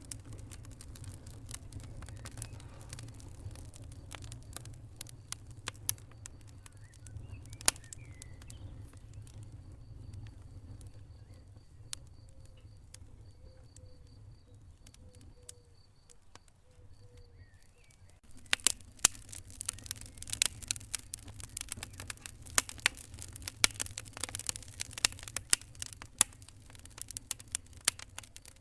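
Wood fire in a fireplace crackling and popping over a low rumble of flames. The rumble fades out a little past halfway, and from about two-thirds in the crackles come much thicker and louder.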